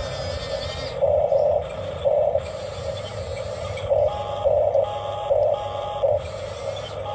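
Small electric motors of an RC toy excavator whirring in short bursts, about half a second each and repeated several times, over a steady background hum.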